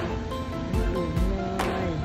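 Background music: held notes over a soft, regular beat.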